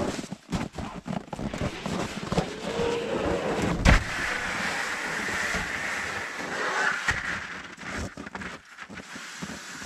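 Plywood sheets being slid off a stack: a run of scrapes and knocks, a heavy thump about four seconds in, then a few seconds of steady scraping hiss.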